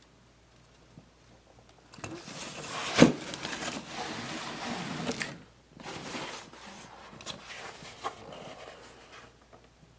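Objects being handled: rustling and scraping, with one sharp knock about three seconds in, then a second, quieter stretch of handling with small clicks.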